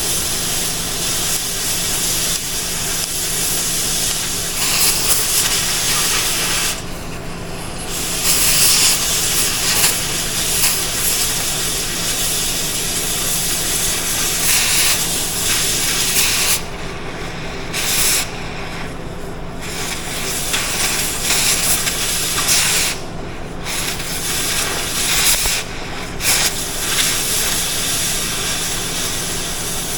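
Oxy-fuel cutting torch hissing steadily as its cutting oxygen is dragged along the edge of a car rim, skimming off metal. The hiss drops out briefly several times.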